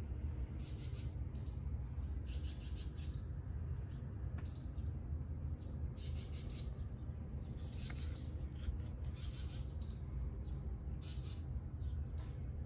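Outdoor background of insects chirping in short repeated trills and birds calling, over a steady low rumble.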